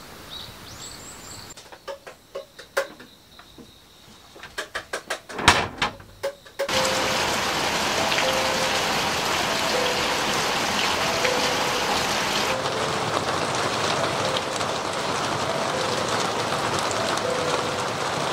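A few faint bird chirps, then a run of sharp clicks and knocks. From about seven seconds in comes steady rain, loud and even, with a soft background melody under it.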